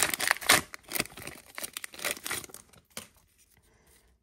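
Foil Pokémon booster pack wrapper being torn open and crinkled in the hands. The crackling is dense for about the first second, then thins out and dies away about three seconds in.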